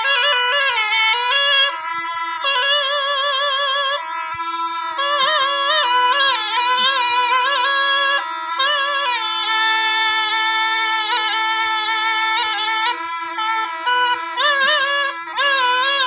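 Rajasthani folk song music: a wavering melodic line over a steady held drone note.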